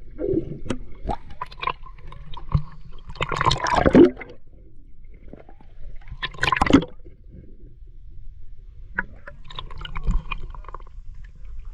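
Water sloshing and gurgling around a camera held at the sea surface as it dips under and rises through the waterline, with louder splashes about three and a half and six and a half seconds in.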